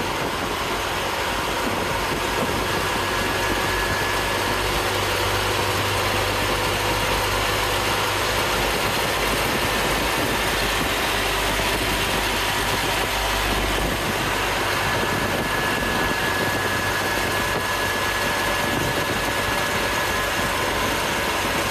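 1954 Dodge M37 military truck's flathead six-cylinder engine running steadily, with a faint high whine that comes and goes. The low rumble eases about fourteen seconds in.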